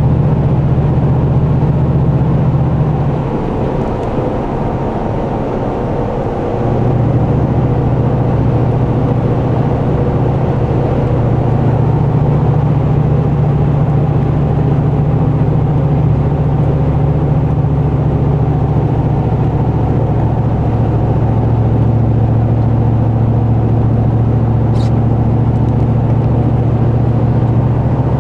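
V8 pickup truck with an aftermarket true-dual exhaust cruising at highway speed, about 1700 rpm, heard from inside the cab: a steady low exhaust drone. The drone eases off for a few seconds about three seconds in, then comes back.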